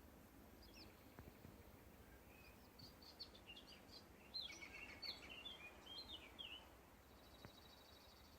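A small songbird singing faintly: a quick run of high chirps and warbled notes, busiest in the middle, then a short buzzy trill near the end.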